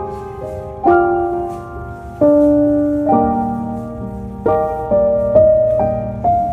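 Slow, gentle piano music, with notes and chords struck about once a second, each ringing and fading away.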